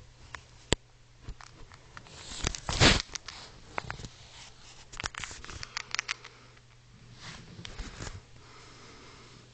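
Close, scratchy rustling and clicks of movement against clothing, with a louder scraping rustle about three seconds in and further bursts of rustling later on.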